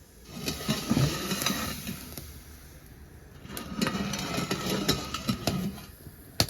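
Kitchen pots and containers being handled, clattering and knocking in two bouts of a couple of seconds each, as milk is readied for cooking.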